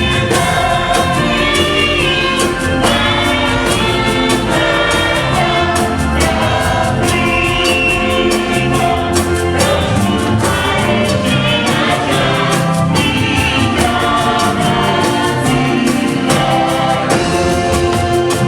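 A church choir singing gospel music in several voices, with a steady percussion beat behind it.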